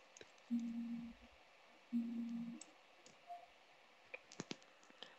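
A computer mouse clicking a few times in quick succession near the end, while the page changes. Earlier come two short, flat, low hums about a second and a half apart.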